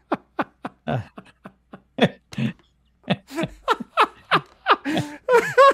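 Two men laughing, a quick string of short ha-ha sounds that pauses briefly about halfway through and then comes back louder.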